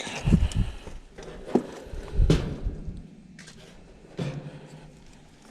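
Dull thumps and a click of handling at an HVAC electrical disconnect box, typical of the pull-out disconnect being pushed back in, followed about four seconds in by a low hum that starts suddenly and fades.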